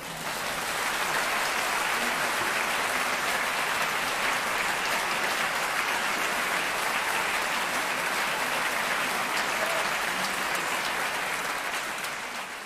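Audience applauding steadily, the clapping building up in the first second and fading away near the end.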